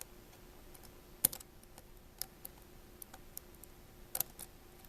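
Small tool clicking and tapping against a tiny screw and the metal parts inside an opened iPhone 5c: scattered light clicks, the sharpest about a second in and again near the end.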